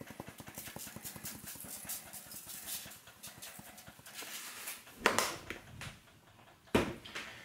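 A seasoning jar shaken over vegetables on aluminium foil, dried onion rattling out in a quick run of light taps for about four seconds. It is followed by a louder thump about five seconds in and a sharp click near the end.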